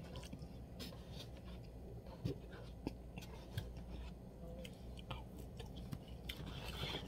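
A person chewing a mouthful of soup with soft, wet mouth clicks, and a few sharper clicks scattered through, over a low steady hum.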